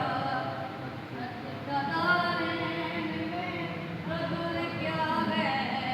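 A boy's high voice singing a qasida, an Urdu devotional poem, in long held notes that bend and slide in pitch.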